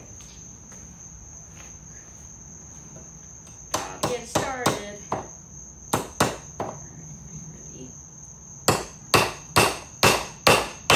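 A 15-ounce titanium Stiletto framing hammer driving duplex nails into a wooden board: a few irregular strikes a little way in, then a steady run of blows about two a second near the end. A steady high-pitched insect drone runs underneath.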